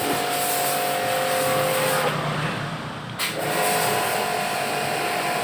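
Steady machine noise, a hiss with a constant hum, that dips about two seconds in and comes back after a sharp knock about three seconds in.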